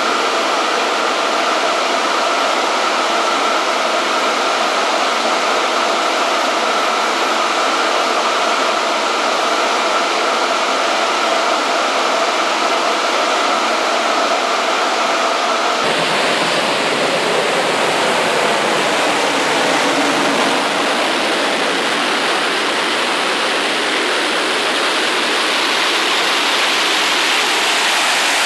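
Orenda OTF-3 industrial gas turbine, an aeroderivative of the Orenda Type 14 turbojet, running steadily at about 7,400 rpm on a test stand: a loud, even rushing noise carrying two steady tones. About halfway through, the tones drop out abruptly and the sound becomes a broader, hissier rush.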